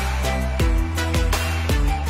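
Background music with a deep, falling bass kick drum about twice a second, held synth notes and fast hi-hats.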